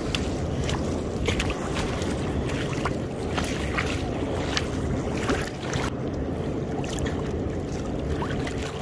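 Shallow water sloshing and splashing irregularly around legs wading through it, over a steady rumble of wind on the microphone.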